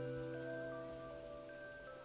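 Soft background music of long, overlapping held notes, growing gradually quieter.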